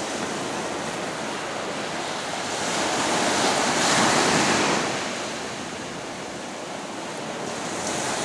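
Ocean surf breaking and washing up the shore, a steady rush that swells louder as a wave comes in about three to five seconds in, and again near the end.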